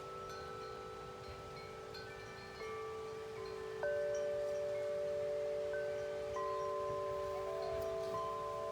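Wind chimes ringing in the wind: several notes are struck at different moments and ring on, overlapping, with the loudest strike about four seconds in. A faint wind rumble sits underneath.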